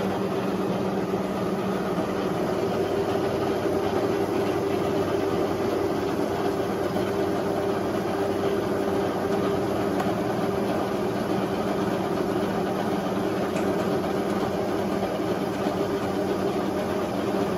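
1941 Monarch 12CK engine lathe running under power: a steady machine hum with a constant tone, a lower tone dropping out about two seconds in.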